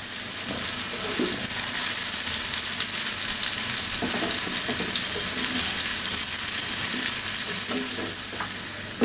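Soaked soya chunks sizzling steadily as they fry in hot oil in a non-stick pan, with the scrape of a slotted spatula stirring them now and then.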